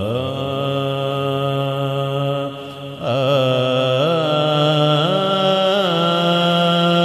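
Devotional naat singing: one voice holding long drawn-out notes with wavering ornamental slides, over a steady drone. The voice drops away briefly about two and a half seconds in, then comes back.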